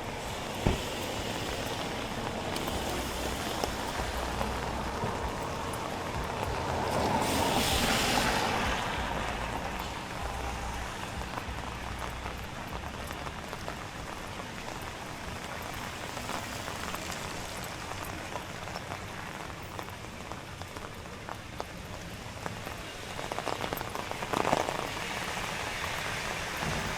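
Steady rain falling on a street, an even hiss. About eight seconds in, a louder hiss swells and fades. A short, louder burst comes near the end.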